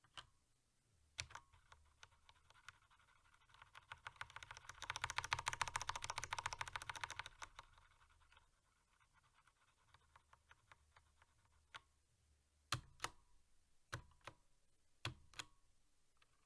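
Typing on a SteelSeries 7G full-size mechanical keyboard with Cherry MX Black linear switches, the keystrokes sounding quite muted. A few scattered key presses lead into a fast run of typing in the middle, followed by sparse single keystrokes, a few of them louder, near the end.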